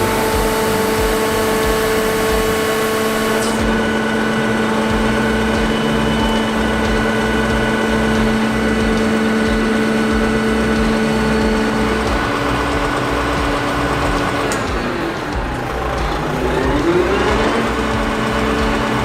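A heavy machine's engine running steadily with a whine. About three quarters of the way through its pitch falls, then climbs back up.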